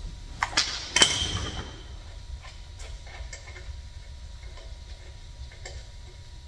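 Metal clanking as an exhaust manifold is fitted against a Boss 302 small-block's cylinder head: a couple of sharp clanks about half a second and a second in, the second ringing briefly, then faint clinks of metal parts and bolts.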